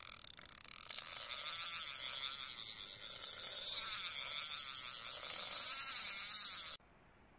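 Carp reel spool spinning fast in free-spool as a hooked carp strips line off: a continuous high whirring buzz that cuts off suddenly near the end when the angler takes hold of the reel.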